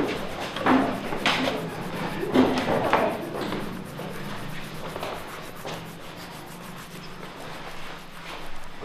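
Several paintbrushes scrubbing and dabbing on a large canvas, with a few sharper knocks in the first three seconds, then steady scratchy rubbing.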